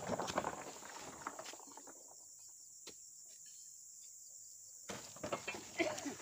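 Two spells of rustling, scraping and knocking as oil palm fruit bunches are handled during truck loading, the first right at the start and the second about five seconds in. A steady high insect whine runs under both.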